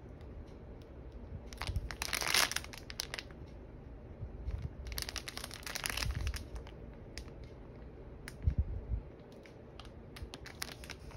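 Small plastic zip-lock sachets of square diamond-painting drills crinkling and rustling as they are held and turned, in several short bursts, with a few soft low bumps from handling about two thirds of the way through.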